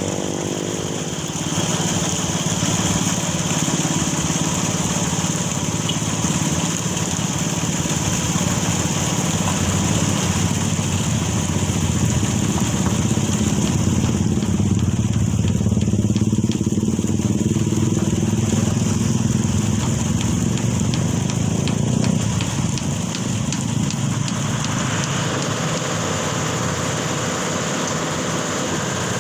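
Heavy vehicle engine running steadily under a constant hiss, its note shifting about three quarters of the way through.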